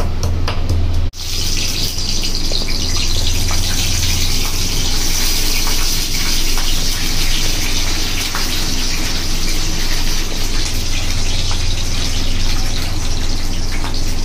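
Green chillies sizzling in hot oil in a kadai: a steady hiss with small crackles and spits. For about the first second, before an abrupt cut, a stone pestle knocks rhythmically in a stone mortar.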